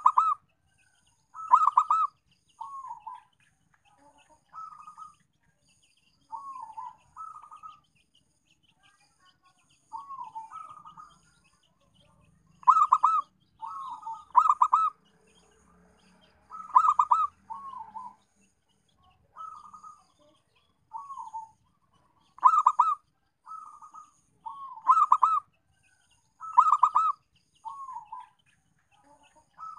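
Zebra dove (perkutut) cooing: a repeated song of short coos at one pitch, with loud quick rolling phrases every few seconds and softer single falling coos between them.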